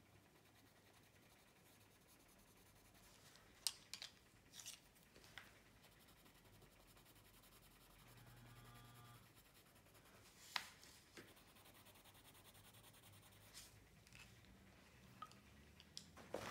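Faint scratching of a coloured pencil shading on paper, broken by a few light clicks and taps, the loudest about four and ten seconds in.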